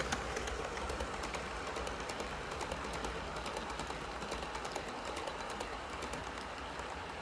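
Model train running on the track: the Hornby Railroad Class 59 hauling a rake of hopper wagons, with a steady running whir and many light clicks from the wheels passing over rail joints.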